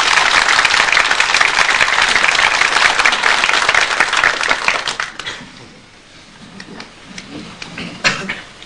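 Audience of men applauding in a crowded room: dense, steady clapping that dies away about five seconds in, leaving a few scattered claps.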